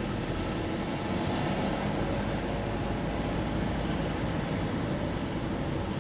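A car driving, with its steady engine and tyre noise on the road.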